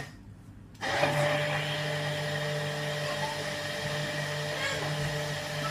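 Hand-held stick blender running in a glass jug of milky smoothie mixture. The motor is off at the start, switches back on just under a second in, then runs steadily.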